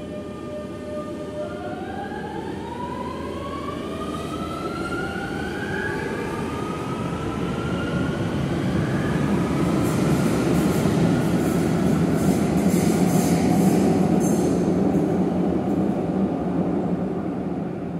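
Metrovalencia 4300-series electric metro train pulling out of an underground station. Its traction motors whine in a rising glide as it accelerates. The rumble of wheels on rail then grows loud as the cars pass close by, and fades near the end as the train goes into the tunnel.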